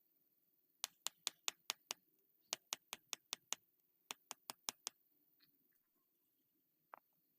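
Three quick runs of sharp clicks, five or six in each at about five a second, then a lone click near the end.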